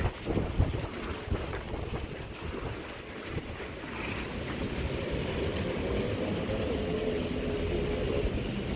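Wind buffeting the microphone over a steady low machine rumble, with a humming tone joining about five seconds in.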